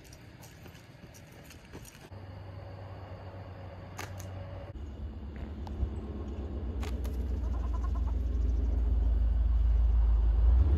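A vehicle engine running with a low hum that starts about two seconds in and grows steadily louder, with a couple of faint clicks.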